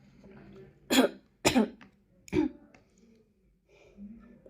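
A woman coughing three times in quick succession, in short sharp coughs; they are a symptom of her Covid-19 infection.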